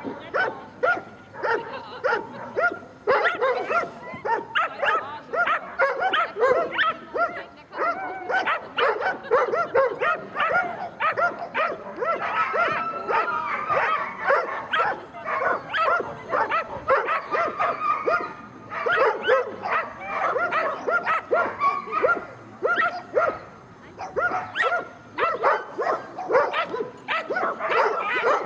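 Sighthounds barking and yipping in quick succession, the barks coming thick and fast with hardly a pause.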